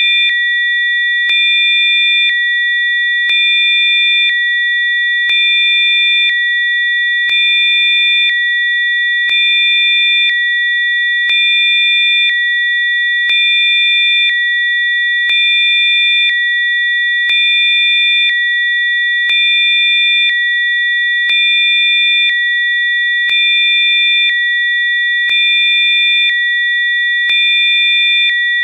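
Synthesized healing-frequency sine tones: several steady, high-pitched tones held together, with a faint click about once a second and a slight swell in loudness every couple of seconds.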